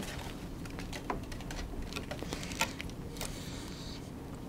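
Faint small clicks and handling sounds of hands and pliers working a tennis racquet string while tying off the final knot. A short swish about three seconds in as the string end is drawn through to tighten the knot.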